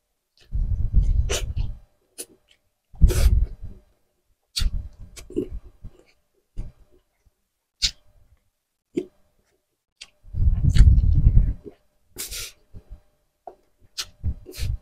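Eating sounds of grilled tuna jowl being eaten by hand: irregular wet smacks and clicks of chewing and lips, with three heavier low rumbles about a second long, near the start, about 3 s in and about 10 s in.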